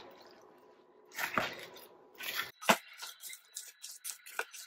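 Hands squelching chicken leg pieces through a wet curd-and-spice marinade in a glass bowl. There is a couple of louder squishes, then quieter wet strokes several times a second over the second half.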